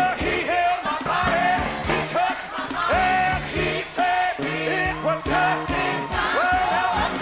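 Upbeat gospel song played by a live band: drum kit keeping a steady beat under bass, with a voice singing a melody that slides up into held notes.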